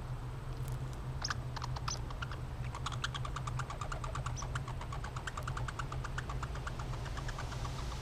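American red squirrel chewing seeds: a rapid run of small crisp clicks, about eight a second, starting about a second in. A steady low hum runs underneath.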